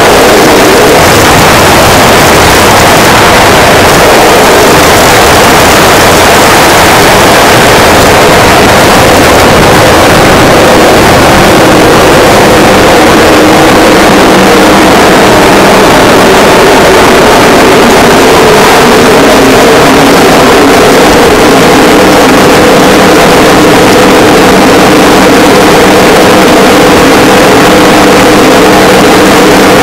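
Harsh noise wall: dense, distorted digital synth noise held at full loudness without a break. A few steady droning tones surface a little past the middle.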